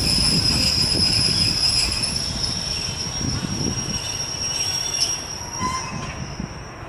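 Train wheels squealing in one steady high tone over a low rumbling run of the cars, fading away near the end.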